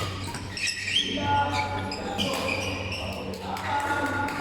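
Basketball game in a gym: sneakers squeaking on the court and a ball bouncing, with players' shouts. A steady low hum runs underneath.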